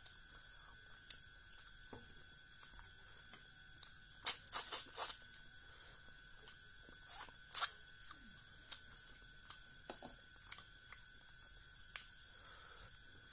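A person chewing and smacking their lips over mouthfuls of rice and fish curry eaten by hand, close to the microphone: scattered soft mouth clicks, with a run of louder wet smacks about four to five seconds in and another near eight seconds.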